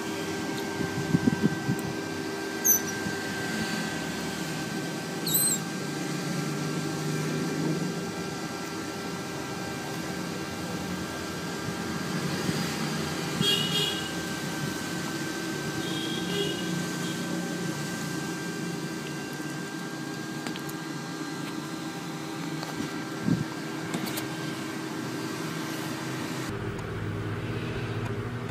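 Otter pup squeaking a few times in short, high chirps over a steady low hum.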